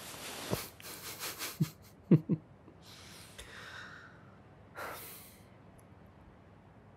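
A man breathing close to the microphone: a long breathy exhale, then two short sharp huffs a little after two seconds, then two softer breaths.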